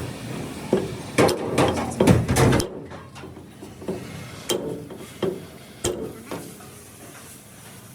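Knocks and clatter of hard parts or tools being handled, set down and struck during work on a hydraulic jack. A dense run of knocks comes from about one to two and a half seconds in, followed by single knocks spaced irregularly, about half a second to a second apart.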